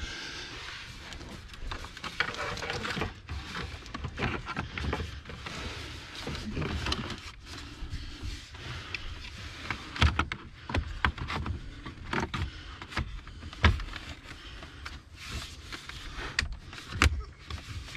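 Plastic dashboard trim panel of a 2021 Ford Bronco being handled and pressed back into place: irregular clicks and knocks of plastic panel clips and trim, with the sharpest knocks about ten seconds in and again near the end.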